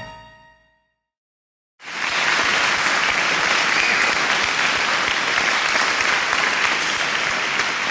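The last of a short chime dies away, then after about a second of silence an audience starts applauding and keeps up steady clapping.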